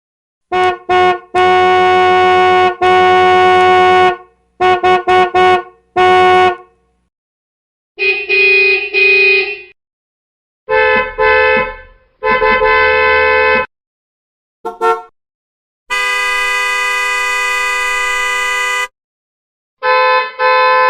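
A series of car horn honks, several different horns in turn: quick double toots, blasts of a second or more, a rapid run of short beeps, and near the end one steady blast about three seconds long, each with short silent gaps between.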